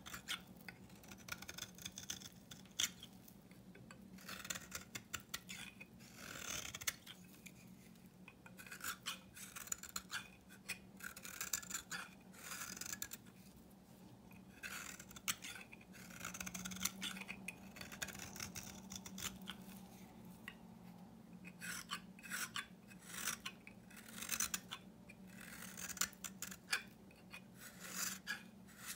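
Knife blade shaving thin curls and crumbly flakes off a bar of old Svoboda-factory soap held in the hand: quick, repeated dry scraping strokes with a few short pauses.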